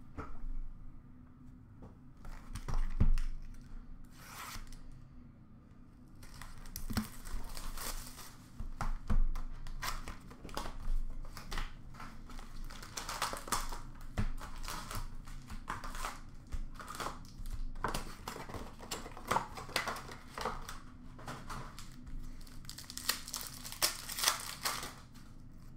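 Upper Deck hockey card pack wrappers being torn open and crinkled, with the cards handled by hand. The crinkling comes in quick irregular bursts, busiest from about a quarter of the way in, after a single louder knock about three seconds in.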